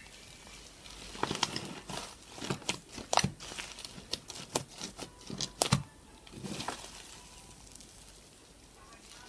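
Crunchy slime being squeezed and pressed, giving clusters of sharp crackling clicks and pops for about six seconds.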